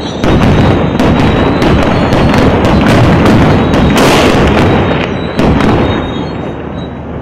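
Heavy weapons fire in a street battle. A loud blast just after the start is followed by a rapid, irregular run of shots, about three or four a second, with another loud blast about five and a half seconds in, then dying away near the end.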